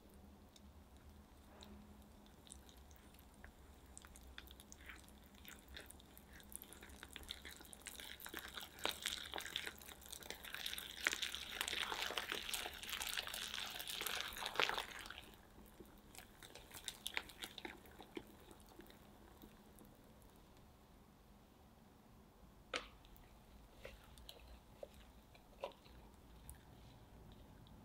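Wire whisk stirring thick cocoa cookie batter in a glass bowl: rapid wet clicking and scraping that builds up, is loudest for about seven seconds, then stops abruptly. A few light taps follow near the end.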